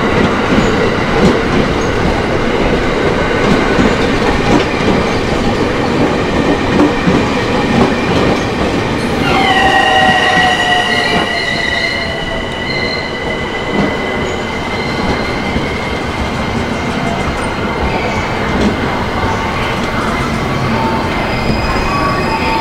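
JR East E231 series electric train running past slowly on the rails, a steady rumble and clatter of wheels over the track. About halfway through a high wheel squeal sets in and falls slightly in pitch, and the noise eases as the train pulls away.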